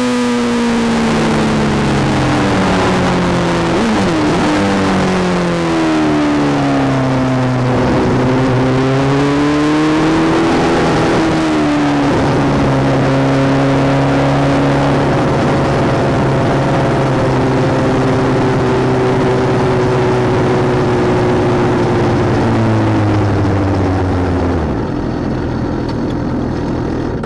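Suzuki GSX-R750 K7 inline-four engine heard from a camera mounted on the bike, with wind rush. The engine note falls as the bike slows, rises and falls twice, then holds a steady low note at pit-lane speed, and drops away near the end.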